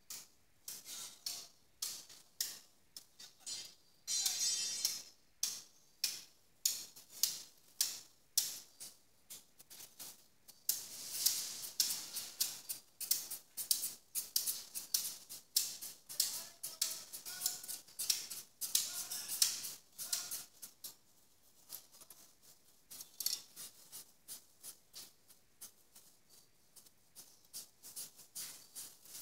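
Butcher's knife scraping and cutting at a hanging pig carcass in a rapid series of short crisp strokes, several a second, with a brief ringing tone about four seconds in.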